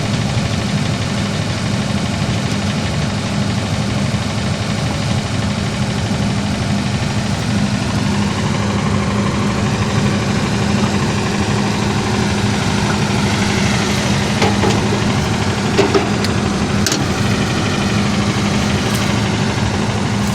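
An engine running steadily at idle, with a constant hum. A few sharp clicks and knocks come about two-thirds of the way through.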